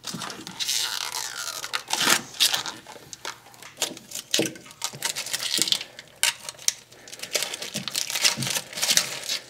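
Clear protective plastic film being peeled off an aluminium charger housing, crinkling and tearing in irregular crackles as it comes away in pieces.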